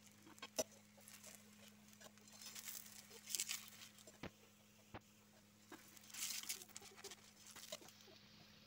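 Faint sizzling of a rice-flour roti cooking in ghee on a tawa, swelling in two short spells as a spatula presses on it, with a few light clicks of the spatula against the pan.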